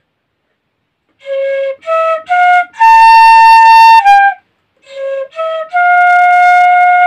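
Santali tirio, a bamboo transverse flute, played in clear single notes. After a second of silence it climbs in three short notes to a long held higher note, pauses, then plays two short notes and settles on another long held note. The notes step up as the fingers are lifted from the holes one by one.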